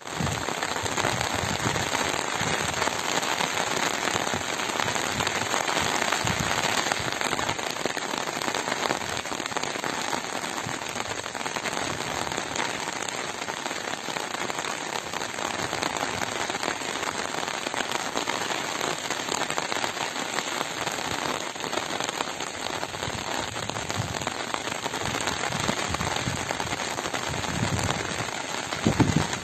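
River water rushing steadily, heard as an even, unbroken hiss.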